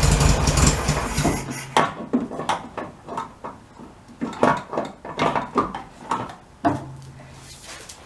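1967 Volkswagen Beetle's air-cooled 1500 flat-four idling on its first run after being reinstalled, then stopping about a second and a half in. After it come scattered knocks and clunks, and a faint low hum near the end.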